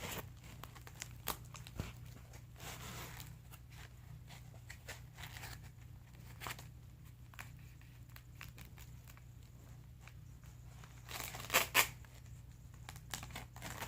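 Adhesive tape being pulled and torn off a roll and handled against a cardboard box: scattered crinkles, taps and rips, the loudest two close together near the end.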